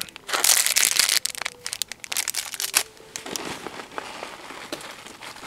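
Clear plastic bags crinkling as a bagged paracord bracelet is handled and set down among other bagged gear. The crinkling is dense, with sharp snaps, for the first three seconds or so, then eases to a fainter rustle.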